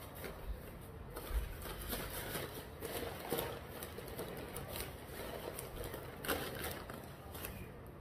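Eating noises close to the microphone: an irregular run of small clicks and crackles from chewing and handling fast food and its paper packaging.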